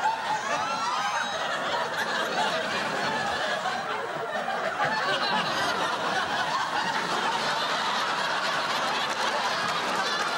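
Studio audience laughing, a dense mass of many voices that goes on steadily.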